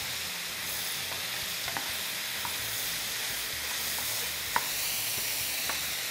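Sliced portobello mushrooms with onion and garlic sizzling in olive oil in a wide sauté pan, early in the sauté, while a wooden spoon stirs them. A steady sizzle with a few light scrapes and taps of the spoon against the pan, the sharpest a little past halfway.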